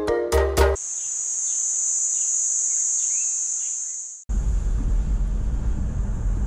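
Background music with plucked notes ends under a second in, giving way to a steady high-pitched insect drone with a few faint bird chirps. About four seconds in it cuts off suddenly to the low, steady rumble of a vehicle driving on a dirt road, heard from inside the cabin.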